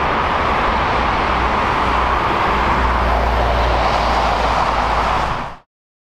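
Boeing 787-9 Dreamliner's jet engines at takeoff thrust during the climb-out: a loud, steady roar with a deep rumble underneath. It cuts off suddenly about five and a half seconds in.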